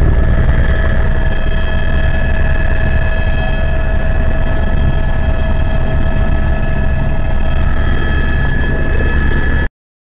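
Helicopter engine and rotor noise heard from inside the cabin: a loud, steady low rumble with constant high whining tones, cutting off suddenly near the end.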